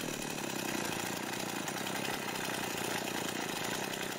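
Stihl MS260 chainsaw's two-stroke engine idling steadily, running well on a newly fitted cylinder and piston.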